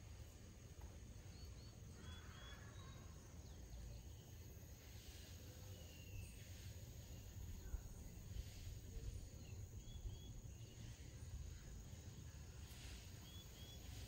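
Faint outdoor ambience: a steady high insect drone over a low rumble, with brief small bird chirps in quick pairs a few times.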